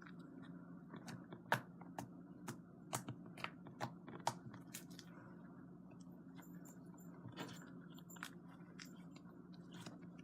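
Slime being kneaded and stretched by hand, giving faint scattered small clicks and pops, over a faint steady hum.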